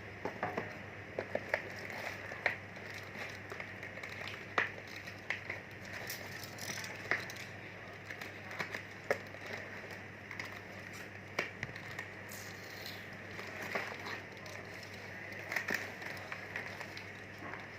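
Packaging being handled: scattered sharp clicks and light crackling over a steady hiss.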